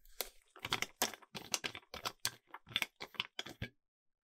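A quick run of short plastic clicks and scrapes from hands working on GameCube controller parts, about three or four a second, stopping about three and a half seconds in.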